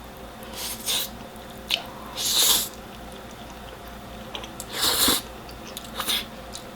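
Close-miked eating of thick, sauce-coated Samyang black bean noodles: about five short slurps and chewing sounds, spread out with pauses between them.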